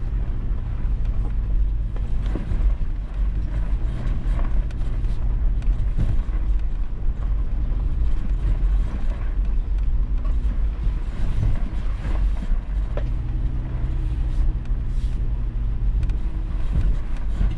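Toyota 4Runner's engine running at low speed as it crawls over ruts and rocks up an incline, with scattered knocks and clatter from the rough trail.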